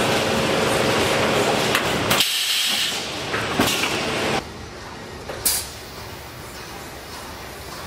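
Automated can palletizing machinery with a pneumatic gripper head running with a steady mechanical din, then short sharp hisses of compressed air and a few clicks as the gripper handles a layer of empty tinplate cans. The running noise drops off suddenly about two seconds in, and a second brief hiss comes a little past the middle.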